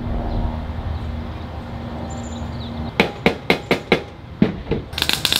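A steady low hum, then about seven quick, sharp hammer taps on the sheet-metal fender flare at a tack-welded seam. Near the end comes the loud crackling buzz of a MIG welder striking a tack weld.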